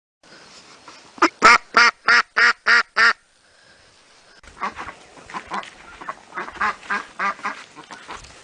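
Duck quacking: a run of about seven loud, evenly spaced quacks, roughly three a second, then after a short pause a longer series of quieter, quicker quacks.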